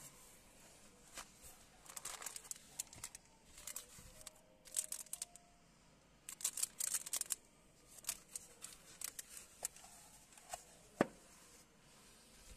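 Thin plastic wrapping crinkling in irregular bursts as it is handled around a sunglasses case, with one sharp knock about eleven seconds in.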